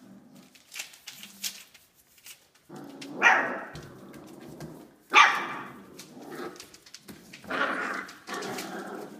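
Labradoodle puppies barking: about four short, high-pitched barks, the loudest two about two seconds apart, with two more near the end.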